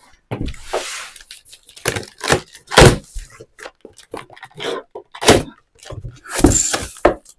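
Cardboard shipping box being opened by hand: flaps pulled back and the packing inside handled, giving a string of irregular scrapes, rustles and knocks. The sharpest knocks come about three seconds in and again about five seconds in.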